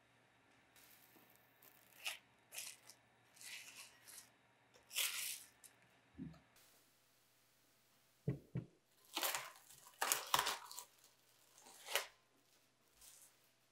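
Plastic cling film pulled off the roll, torn and crinkled as it is stretched over a glass bowl, in a series of short rustling bursts. A couple of low knocks come in the second half, amid more crinkling of the wrap.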